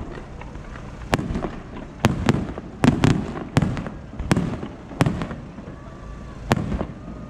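Aerial firework shells bursting overhead: about ten sharp bangs at uneven intervals over seven seconds, each trailing off briefly.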